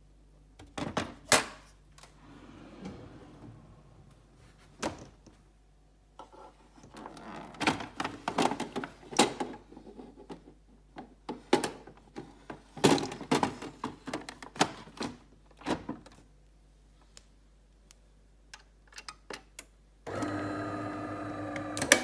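Plastic clicks, knocks and rattling as the bean hopper and the removable water tank of an AEG built-in coffee machine are handled and slotted back into place. Near the end the machine switches on and runs with a steady hum for about two seconds, ending in a sharp click.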